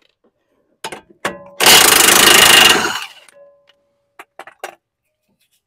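Cordless impact wrench hammering for about a second and a half, spinning off the 18 mm nut of a sway bar end link while an open-end wrench holds the stud. Short metallic clicks of the wrench come before and after.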